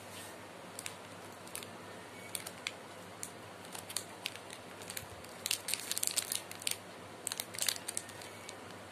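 Plastic biscuit wrapper crinkling as it is handled and turned over in the hands, in scattered sharp crackles that come thickest a little past halfway through.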